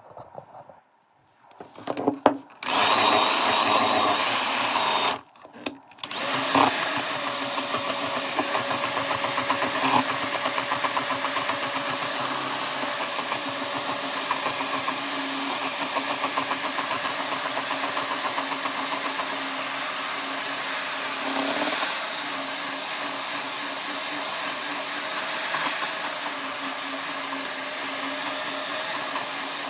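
Handheld electric mixer beating cream that has split into butter and buttermilk in a steel bowl. The motor starts about two seconds in, stops briefly about five seconds in, then restarts and runs steadily with a high whine.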